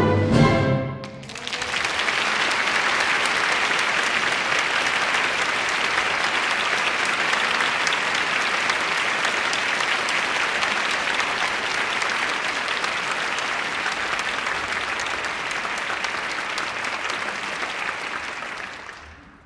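Theatre audience applauding steadily, fading out near the end. The orchestra's music breaks off about a second in, just before the applause starts.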